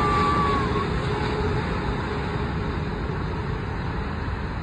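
Jet engine noise of a landing twin-engine widebody airliner, a steady rumble that slowly fades as the aircraft moves away down the runway, with a brief high whistle near the start.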